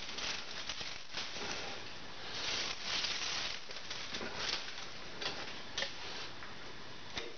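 Metal lathe cutting a large disc blank for a chuck backplate, with long metal chips spraying off the tool and pattering against the toolpost and machine. The cutting hiss runs under many irregular ticks and clatters of chips striking metal.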